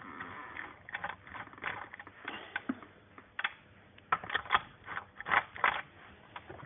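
Metal cylinder-head parts being handled and taken apart: irregular sharp clicks and knocks of metal on metal, with a brief scraping rustle near the start.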